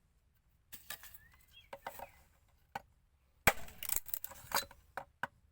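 Irregular knocks and taps of a Bellota alcotana (picoleta axe-hammer) striking wood, with the hardest blow about three and a half seconds in and a quick run of lighter hits after it.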